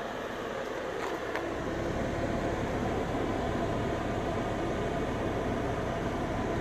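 A motor running steadily, getting louder with a deeper hum about a second and a half in.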